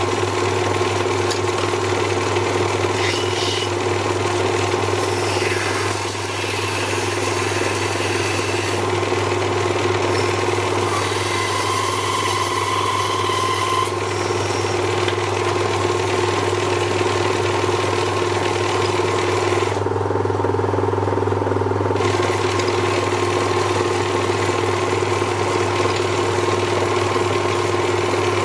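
Small electric lathe running with a steady hum, while a hand-held tool scrapes against the spinning ebonite pen blank, cutting it down in shavings.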